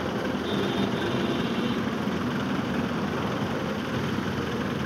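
A heavy engine idling steadily, most likely the recovery crane's engine running as it stands over a car in a ditch.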